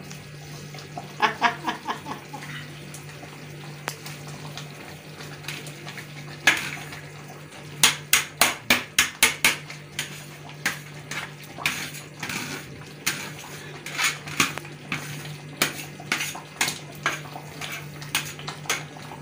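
Metal ladle clinking and tapping against a metal stew pot and a plastic colander as chopped leaves are knocked and stirred into the stew. The taps come in quick runs and scattered single knocks.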